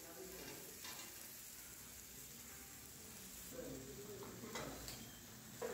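Food faintly sizzling on a ridged grill pan, a steady hiss, with a few sharp metal clicks and knocks from the tongs and pans.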